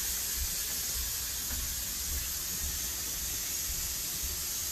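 A steady hiss with faint, uneven low bumps beneath it; no distinct event stands out.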